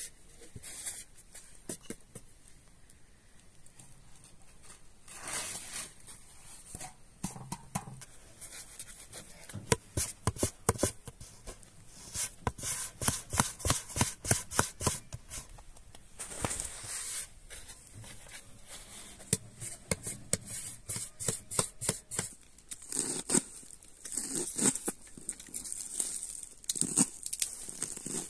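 Hands kneading and slapping dough on a floured wooden board: runs of quick pats and slaps, several a second. Near the end, a knife chopping green onions on a cutting board.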